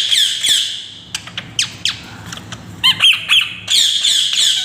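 Pet parrot squawking: harsh, high-pitched calls repeated rapidly in bursts, at the start, a few scattered ones around one and a half seconds in, and a longer run in the last second.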